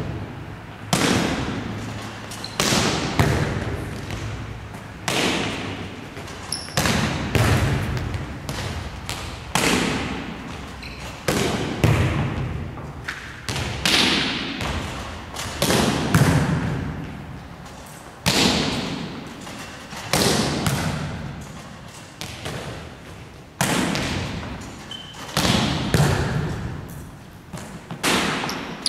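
Volleyball drill: a volleyball smacked by hand and passed off the forearms again and again, a sharp hit about every two seconds, each ringing on in the echoing gymnasium.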